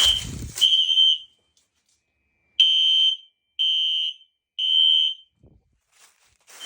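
Fire alarm horns sounding the temporal-3 evacuation pattern, a steady high-pitched tone in half-second blasts, three at a time with a pause of about a second and a half between groups. This is the sign of an activated alarm system after a pull station has been tripped.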